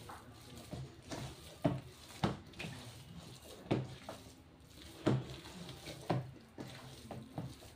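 Bread dough being kneaded by hand in a stainless steel bowl, as margarine is worked into it: irregular soft thuds and slaps of the dough pressed and dropped against the bowl, about five louder ones.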